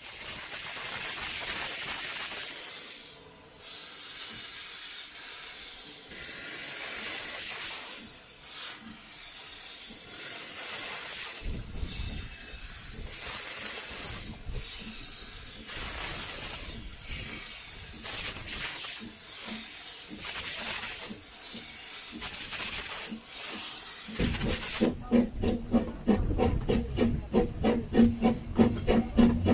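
Narrow-gauge steam locomotive standing with steam hissing unevenly, in surges with short breaks. About 25 seconds in, it starts away and its exhaust beats come in a quick, even rhythm.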